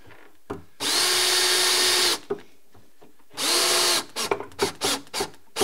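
DeWalt cordless drill driving a screw through a steel drawer slide into a plywood cabinet side. There is one long run of about a second, with the motor pitch rising as it spins up, then a shorter run, then a string of quick trigger blips as the screw is seated.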